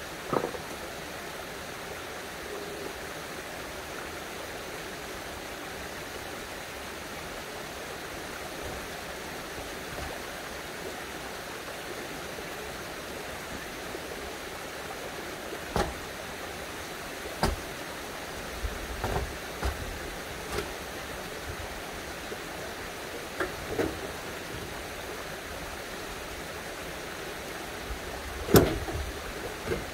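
Stones knocking against one another as they are handled and set into a dry-stone wall: a few short, sharp clacks scattered through, the loudest near the end. Under them, a steady rush of running spring water.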